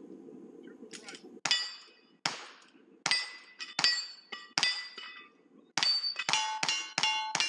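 A lever-action rifle firing about ten quick shots at steel targets, each shot followed by the ringing clang of a struck steel plate, the shots coming faster toward the end.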